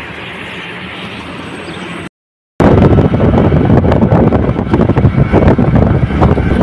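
Steady roadside traffic noise for about two seconds, then a short cut to silence. After that, loud wind buffeting the microphone, with road noise, from inside a moving auto-rickshaw.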